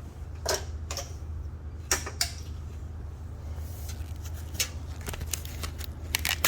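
Irregular clicks and knocks of hand tools working on metal, with a cluster of them near the end, over a steady low hum.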